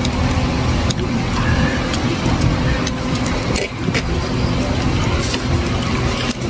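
Steady low mechanical rumble, like a motor running nearby, with a few short light clicks.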